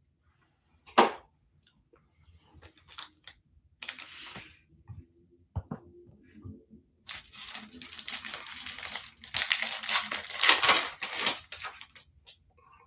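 Foil baseball card pack wrapper being torn open and crinkled, in short crackling bursts that build to the loudest stretch about ten to eleven seconds in, with a single sharp click about a second in.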